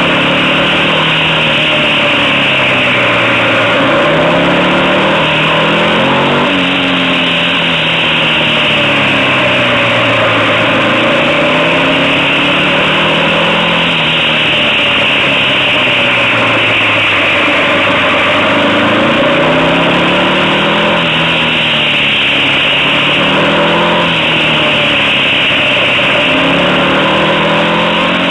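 Motorcycle engine running under way, its pitch rising and falling again and again as it accelerates and slows through bends.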